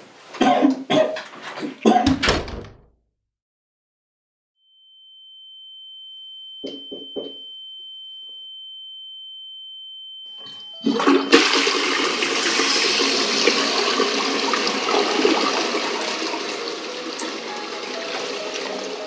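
A toilet flushing: a loud rush of water that starts suddenly about eleven seconds in and slowly fades. Before it, after a few loud short sounds at the start and a brief silence, a steady high-pitched tone is held for about six seconds.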